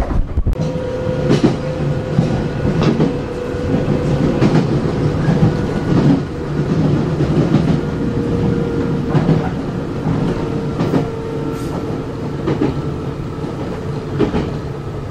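Running sound of a Nankai 6000 series resistance-controlled motor car at steady speed: its Mitsubishi traction motors give a steady hum over the rumble of the wheels, with sharp clacks from the rail joints about every one and a half seconds.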